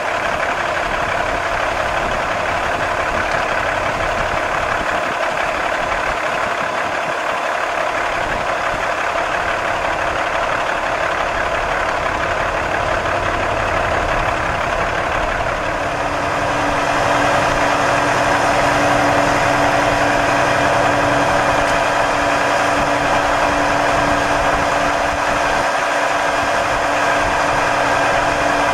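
A semi truck's diesel engine runs steadily while the bulk feed trailer's auger boom is raised and swung over a feed bin. About sixteen seconds in, the sound gets louder and a steady hum joins in.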